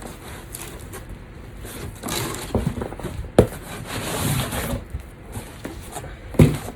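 Handling and rustling of cardboard packaging while unboxing, with a sharp knock about three and a half seconds in and another near the end.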